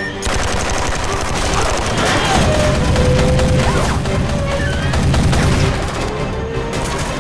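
Rapid automatic gunfire: a long fusillade of shots in quick succession.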